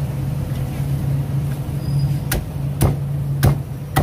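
Meat cleaver chopping roast duck on a thick wooden chopping block: four sharp chops about half a second apart, starting about two seconds in. A steady low hum runs underneath.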